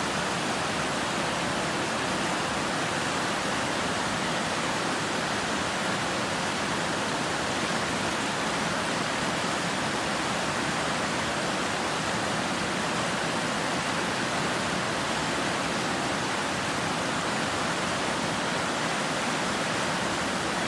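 A river running in spring: a steady, even rush of flowing water.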